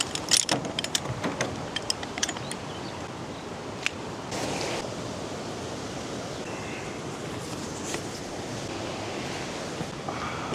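A quick run of clicks and rustling in the first couple of seconds, then steady wind noise outdoors.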